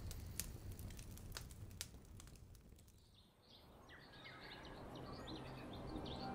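Faint, scattered crackling of a fire that fades away, then birds chirping faintly from about four seconds in.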